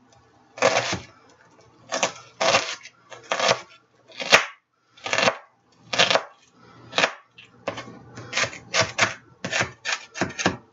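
Chef's knife chopping through a sweet onion onto a cutting board, dicing it fine: a series of short knife strikes on the board, coming faster over the last few seconds.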